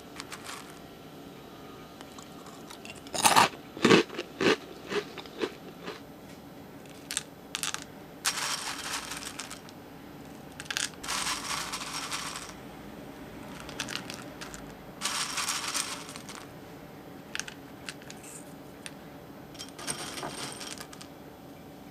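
Dry Froot Loops cereal rattling against a glass bowl: a run of sharp clinks about three seconds in, then a few rustling spells of about a second each as handfuls are taken and scattered.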